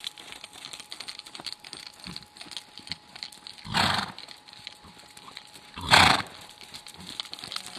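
A horse moving over sand with soft hoofbeats, and two loud snorts about two seconds apart, the second the louder.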